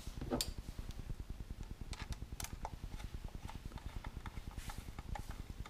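Hand Torx screwdriver driving a screw into the camera bracket of a plastic tailgate handle: irregular light clicks and ticks as the screw turns and the hand shifts its grip.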